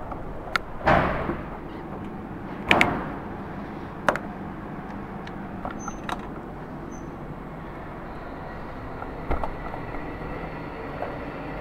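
Two loud bangs that echo in the range, about one and three seconds in, and a sharp click a little later. Under them runs a low steady hum, with a faint rising whine near the end.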